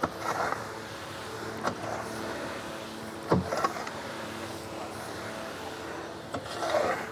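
A metal phawda (Indian spade-hoe) scraping along a concrete floor and scooping into a heap of loose potting soil as the mix is turned over: four strokes, each with a sharp knock of the blade on concrete followed by a gritty scrape, the loudest a little past three seconds in. A steady mechanical hum runs underneath.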